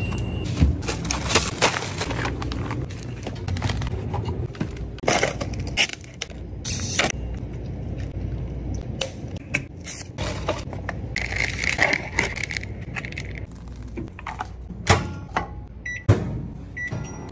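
A string of handling sounds: plastic food packaging clicking and crinkling, and a drink poured from a pouch over ice in a plastic cup. Near the end a microwave oven gives a few short beeps as a cup of instant noodles goes in to heat.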